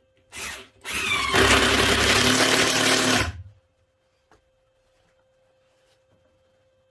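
Cordless drill driving a screw into a timber cabinet frame: a short blip of the motor, then about a second in a longer run of about two and a half seconds that stops.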